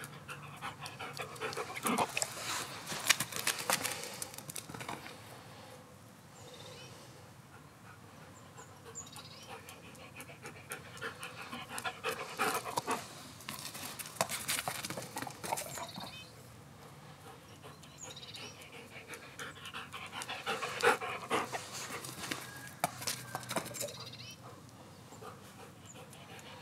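A Belgian Malinois panting hard in three spells, with quick sharp clicks and scuffs of its paws on paving stones as it runs after a ball and back.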